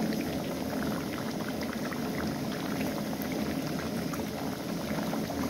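Maandazi dough balls deep-frying in hot oil: a steady sizzle full of small crackles.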